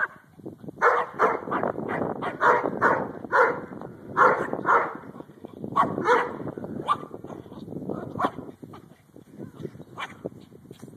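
Yorkshire terrier barking in quick runs of short yaps, several a second, thinning out to single barks spaced further apart in the second half.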